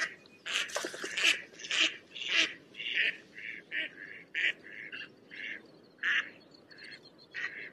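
Ducks quacking in a quick run of short calls, about two a second, some of them overlapping.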